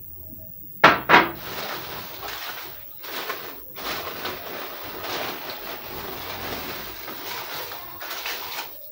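Crinkling and rustling of a shopping bag and paper wrapping as a bowl is taken out and unwrapped by hand, with two sharp crackles about a second in.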